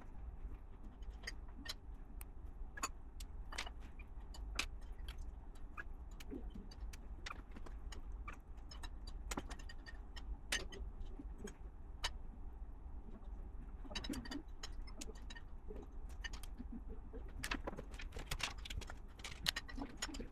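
LEGO plastic bricks clicking and rattling as pieces are handled and pressed together, in short irregular clicks over a low steady hum.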